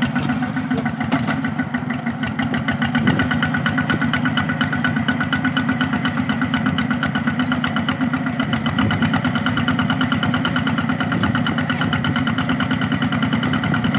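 Two-wheel hand tractor's engine running steadily with a fast, even chugging pulse. It gets a little louder about two and a half seconds in.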